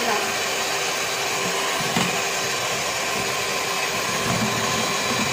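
Electric hand mixer running steadily at an even speed, its twin beaters whisking eggs into a thick white foam. There is a constant motor whine with steady tones.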